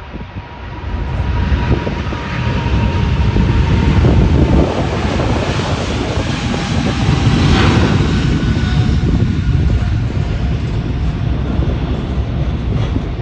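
Boeing 777-300ER's GE90 jet engines running close by: a loud, deep rumble that swells about a second in and then holds.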